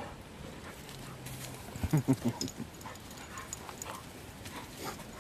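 A Turkish Kangal and a Dogo Argentino play-fighting, giving a low growl about a second in, then a few short, loud growling barks around two seconds in, with faint scattered sounds after.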